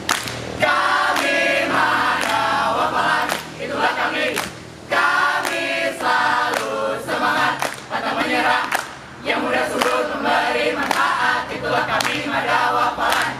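A mixed group of young men and women singing a rhythmic cheer together in Indonesian, with lines like 'kami slalu semangat, pantang menyerah' sung in short loud phrases with brief gaps between them.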